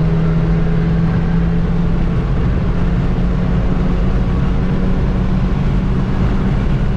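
Honda Civic Type R FK8's turbocharged 2.0-litre four-cylinder running steadily at speed through a catless straight-pipe downpipe, a loud, even exhaust drone.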